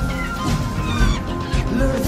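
Music playing: a pop song with a melody over a full backing.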